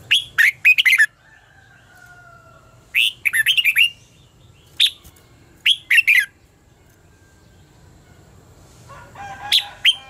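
Red-whiskered bulbul singing short, bubbly phrases of quick sharp whistled notes, about five phrases with pauses between them.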